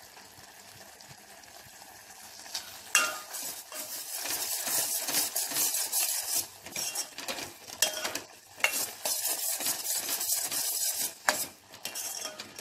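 Steel ladle stirring and scraping against a steel pot of thickening kalakand mixture (reduced curdled milk with sugar and ghee), with a light sizzle. The scraping starts about three seconds in and goes on in quick, irregular strokes. The mixture is stirred constantly so it does not catch on the bottom and burn.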